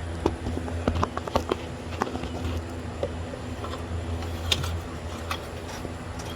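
Scattered light clicks and taps of an oil pressure sensor being handled and fitted by hand to its threaded hole, over a steady low hum.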